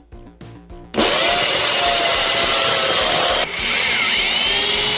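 Power drill with a masonry bit boring into a concrete block wall. It is loud and steady, starts abruptly about a second in, and changes tone about three and a half seconds in.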